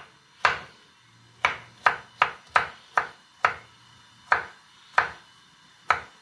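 Kitchen knife slicing carrots on a wooden chopping board: about ten sharp knocks of the blade hitting the board, at an uneven pace.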